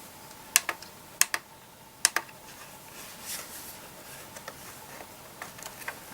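Portable CD player being handled, its plastic parts clicking: three pairs of sharp clicks in the first two seconds, then fainter ticks and light scuffling.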